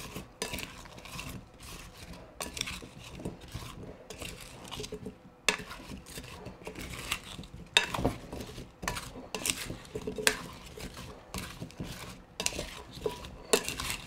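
Cut raw red potatoes being folded with herbs and seasoning in a glass mixing bowl with a plastic serving spoon: irregular clacks and scrapes of spoon and potato pieces against the glass, with a few sharper knocks.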